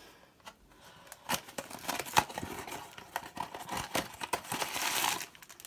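Small cardboard blind box for a Funko Mystery Minis figure being handled and its lid torn open: a few sharp clicks and scrapes, then a run of rustling and tearing of card that is busiest near the end.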